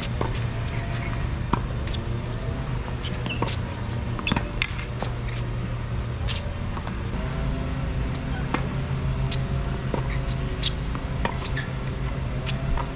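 Outdoor ambience: a steady low hum with scattered short, sharp ticks and faint rising-and-falling tones.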